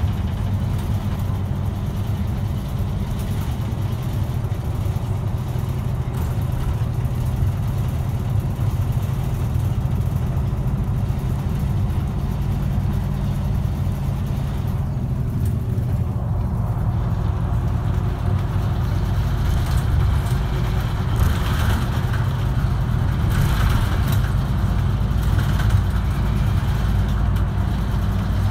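Route bus engine humming steadily, heard from inside the bus as it drives along, with road and tyre noise that gets louder in the second half.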